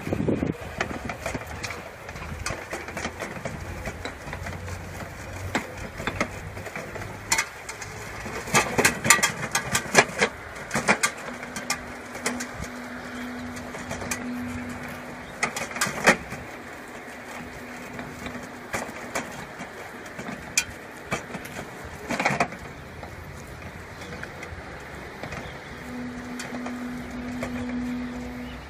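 Battery-powered power barrow (electric mini dumper) at work: a steady low electric motor hum that comes in for several seconds at a time, with knocks and rattles from the barrow, clustered a third of the way through.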